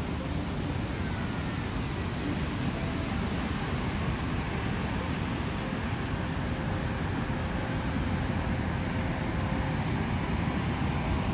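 Wind buffeting the microphone over the steady wash of ocean surf breaking on a beach, growing a little louder near the end.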